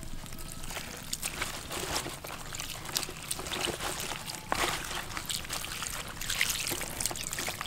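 A hand rubbing and turning wet pieces of raw jackfruit on a leaf: a wet, squishy rustling full of small clicks.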